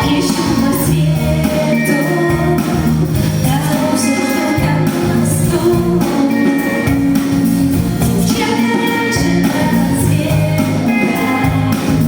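A pop song played live by a band, with a woman singing the melody over it.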